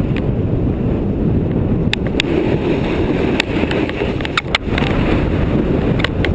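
Strong mountain wind buffeting the microphone, a loud, steady low rumble. Scattered sharp clicks and knocks break through it, several in a row about two seconds in and again past the middle.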